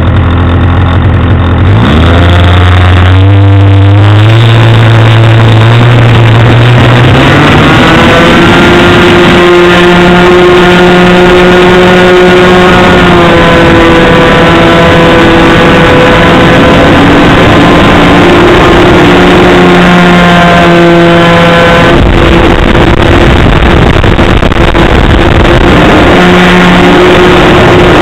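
Nitro glow engine of a Nexstar RC trainer airplane, heard very loud from its onboard camera. It runs low at first, then about two seconds in throttles up to a high, steady pitch for the takeoff and climb, shifting a little now and then.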